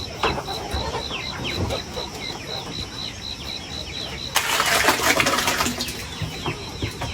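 Chickens clucking, with a brief loud flurry of wing-flapping about four seconds in. A high, regular pulsing call about five times a second runs behind them.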